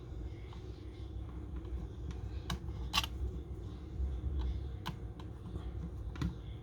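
A few small sharp clicks and taps from handling a Nikon Coolpix L840 compact camera and its tiny screws during reassembly, the loudest about three seconds in, over a steady low hum.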